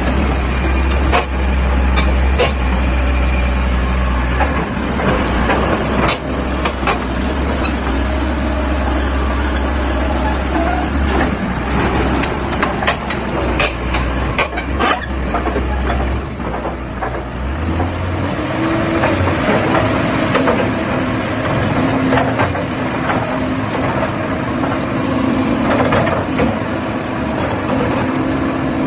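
A Sany SY215C hydraulic crawler excavator's diesel engine running, with a steady low hum and frequent metallic clanks and knocks. About two-thirds of the way through the engine note changes and higher steady tones come in.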